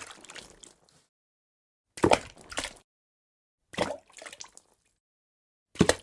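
Water drops falling one at a time into water, about every two seconds. Each drop is a sharp plop with a short splashy tail, with dead silence between drops.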